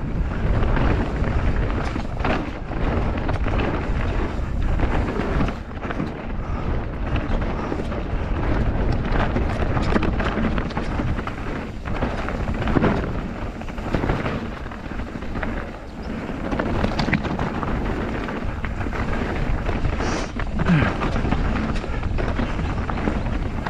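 Mountain bike descending a rough trail: tyres rumbling over stones and roots, with frequent knocks and rattles from the bike.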